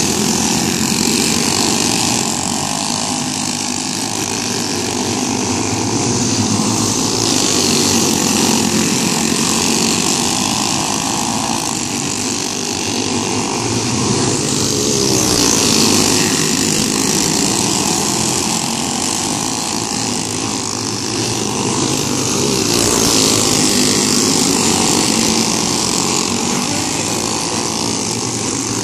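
A pack of dirt-oval racing go-karts running laps, their small engines buzzing together without a break, the sound swelling and fading several times as the pack sweeps past.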